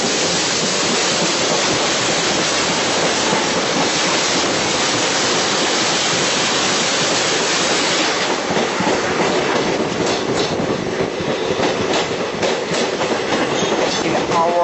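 Train running on the rails, heard from on board: a steady rushing noise that, about halfway through, turns into wheels clattering over rail joints with many sharp clicks.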